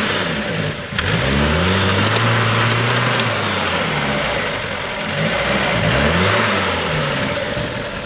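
An engine speeds up about a second in, holds its pitch, and slows back down. It then speeds up and slows down a second time near the end.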